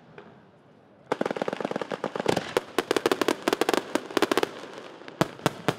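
Aerial fireworks bursting: a fast string of many sharp pops starts about a second in and runs for a few seconds, followed by three louder single bangs near the end.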